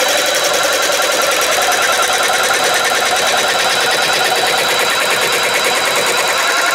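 Jigsaw cutting through a wooden board, running at a steady fast buzz with a thin high whine over it.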